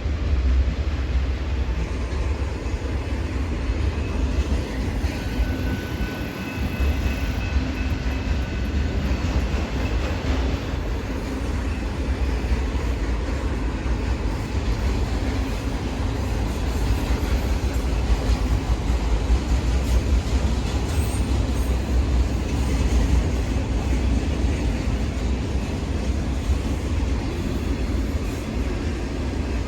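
Long freight train of autorack cars rolling steadily past at close range: a continuous rumble of steel wheels on rail.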